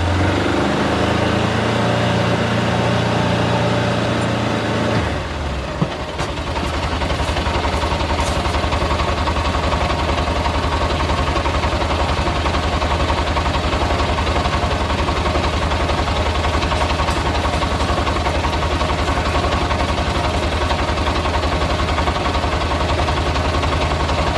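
A vehicle's engine running steadily; about five seconds in its note drops lower and then holds an even, steady pitch.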